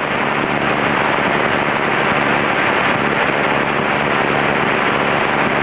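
Steady cockpit drone of a Cessna 172N in flight: the four-cylinder engine and propeller running evenly at power, under a constant rush of air noise.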